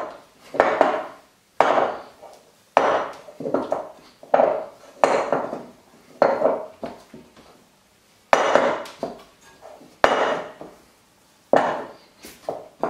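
Glass mixing bowl knocking against the worktop again and again, about once a second with a short pause near the middle, as stiff cocoa biscuit dough is pressed and kneaded by hand in it.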